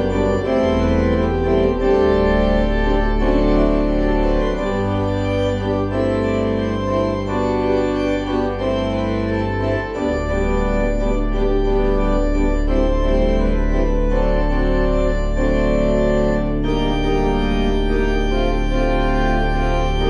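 Organ playing a postlude to close a church service: sustained chords over held bass notes that change a few times.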